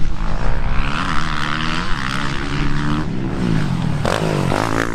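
Motocross bike engines revving on a dirt track, the pitch falling and rising again and again as the riders shut off and open the throttle, with the sharpest swoops near the end.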